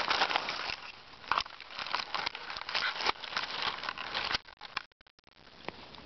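Close, dense crackling and rustling of dry leaves and twigs right at the microphone, stopping abruptly about four and a half seconds in.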